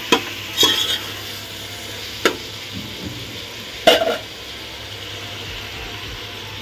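Chopped vegetables sizzling steadily as they fry in an aluminium pot, with a metal ladle scraping and knocking against the pot four times in the first four seconds.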